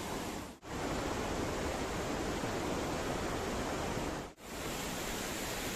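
Steady, even rushing noise, broken twice by a sudden brief drop to near silence: once about half a second in and again near the end.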